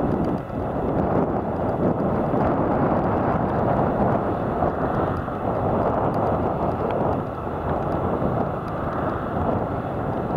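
Tractor's diesel engine running steadily as it hauls a loaded silage trailer across the field.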